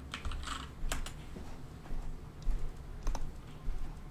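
Computer keyboard typing and clicking: a quick run of keystrokes at the start, then a few single, irregular clicks.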